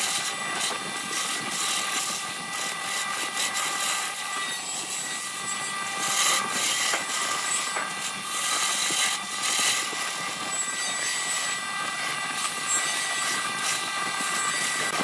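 Wood lathe running, with a hand-held turning tool cutting into a spinning blank of wood and blue resin: a steady motor whine under the scraping hiss of the cut, which swells and eases as the tool works.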